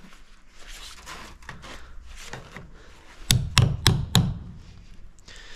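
Four sharp knocks in quick succession, about three seconds in: a tool striking a wooden board as it is pried off the frame of a screened porch. Faint scraping and handling noises come before the blows.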